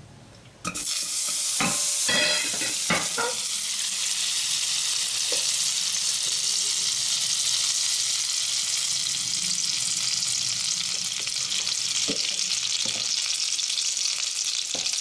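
Butter and olive oil sizzling in a hot metal kadhai. The sizzle starts abruptly just under a second in and holds steady, with a few light knocks in the first three seconds.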